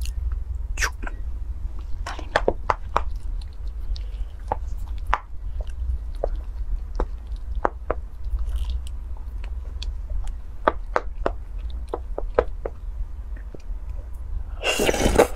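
A wooden spoon stirring sticky rice into a thick liquid in a glass bowl, making scattered short wet clicks and taps. Near the end there is a loud slurp as a spoonful is eaten.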